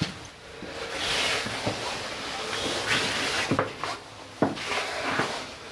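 Footsteps knocking on stone stair treads, with rustling in between, as someone climbs a narrow stone tower staircase.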